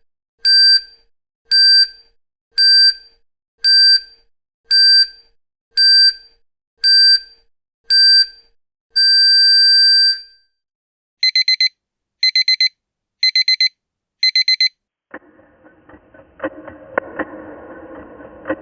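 Electronic countdown timer beeping: eight short high beeps about one a second, then one long beep at zero. After that an electronic alarm sounds in four quick bursts of rapid beeps. About fifteen seconds in, a different, noisier sound with irregular clicks begins.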